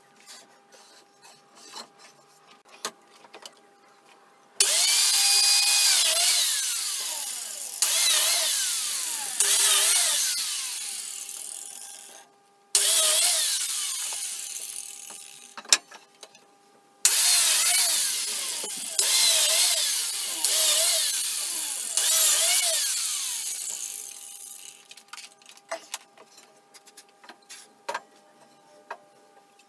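Biscuit jointer (plate joiner) switched on and plunged into the hardwood chair pieces, run after run: each starts suddenly with a high motor whine and dies away as the motor winds down. Knocks and clicks of the wood being handled come between the runs.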